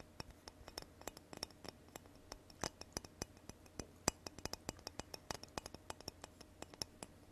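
Fingernails tapping on a rose-gold lipstick case, an irregular run of sharp little clicks, several a second.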